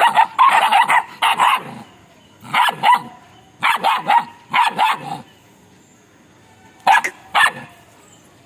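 Belgian Malinois puppies barking in quick clusters of short yaps, with brief pauses between them, ending in two single barks.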